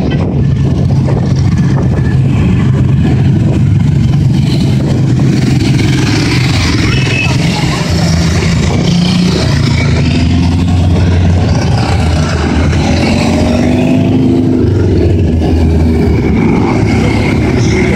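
A procession of motorcycles riding slowly past one after another, their engines running with a low drone whose pitch rises and falls as each bike goes by.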